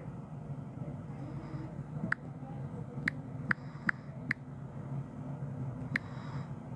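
Steady low hum with about six short, sharp clicks, five of them close together in the middle and one more near the end.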